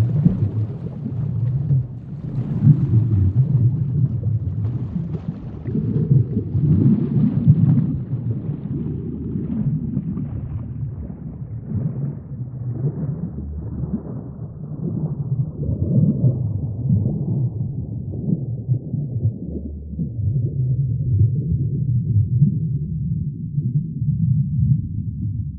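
Underwater ambience: a low, uneven rumble of moving water that swells and ebbs, with faint crackling in the first half.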